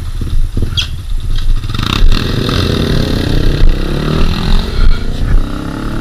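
Motorcycle engines pulling away, revving and accelerating, their pitch rising from about two seconds in.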